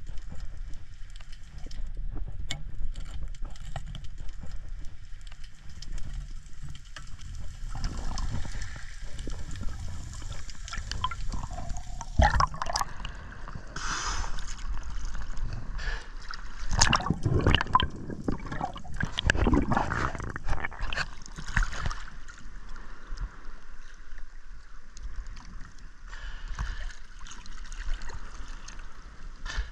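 Sea water gurgling and sloshing, heard first underwater and then at the surface, with a run of louder splashes in the middle.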